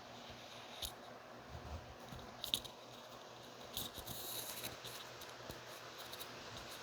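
Steady rain hiss with a few scattered sharp taps, like drops striking a hard surface close by.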